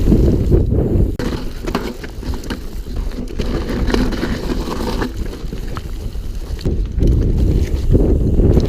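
Wind buffeting the microphone in a loud, uneven low rumble while riding a bicycle, with scattered light knocks and rattles.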